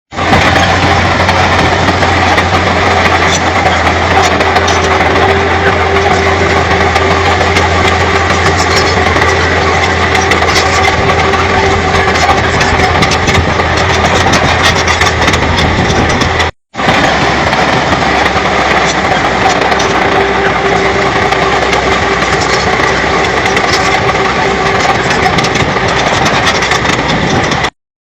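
Shantui bulldozer's diesel engine running steadily, broken by a short gap a little past halfway.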